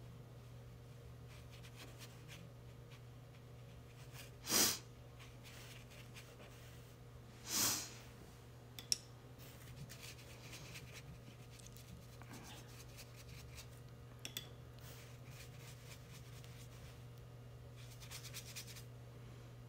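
Watercolour brush working on paper: faint soft scratches and rubs over a low steady hum. Two short, louder breathy swishes come about four and a half and seven and a half seconds in, with a sharp tick just after the second.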